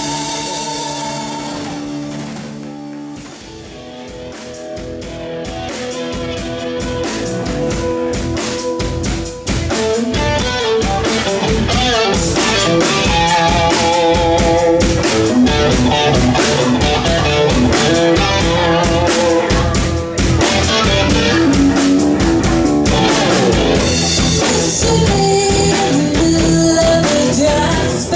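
Live rock band playing: electric guitars, bass and drum kit, amplified. A softer passage near the start dips and then builds, and about nine seconds in the full band comes in loud with driving drums.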